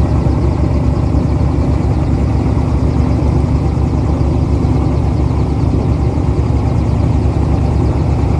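Airboat's engine and large air propeller running steadily and loudly while the boat travels across the marsh.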